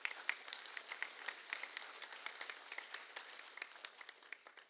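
Audience of students applauding: many hands clapping at once, thinning out and fading away near the end.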